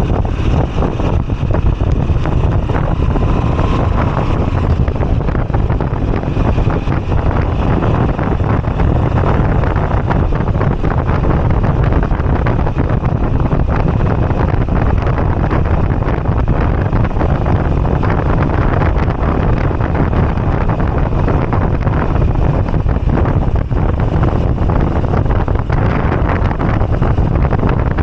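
Wind buffeting the microphone over the Moto Guzzi V85TT's air-cooled V-twin engine, running steadily at riding speed.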